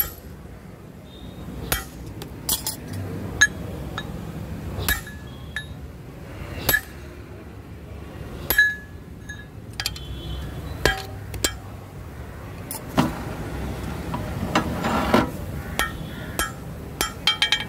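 Hammer blows on steel forging tools and the anvil while a red-hot axe head is shaped: irregular sharp metallic clinks, each with a short ring, coming faster near the end.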